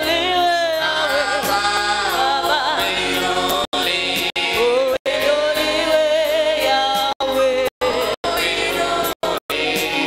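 Gospel worship song, a man singing into a microphone with other voices and musical backing. The sound cuts out completely for an instant about ten times.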